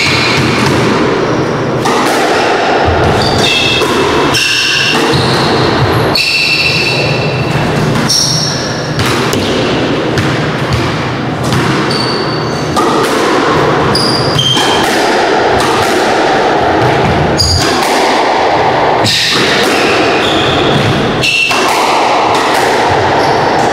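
Squash rally: repeated sharp hits of the ball off rackets and the court walls, with short high squeaks of court shoes on the wooden floor between them.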